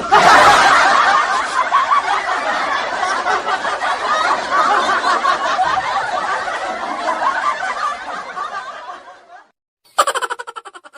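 Laughter sound effect: a group of people chuckling and snickering, fading out after about nine seconds. A short sound effect of quickly repeated pulses starts near the end.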